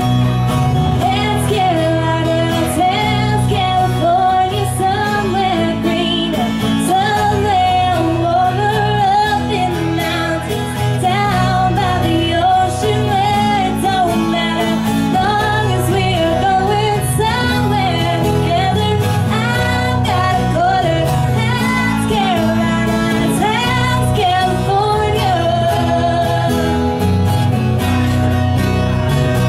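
Country song played by a live band: a voice singing the melody over guitar accompaniment.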